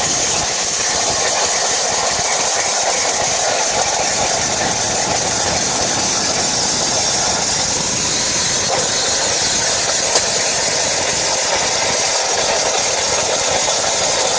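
CNC plasma torch cutting through 5/8-inch-thick plate: a loud, steady hiss that holds evenly throughout.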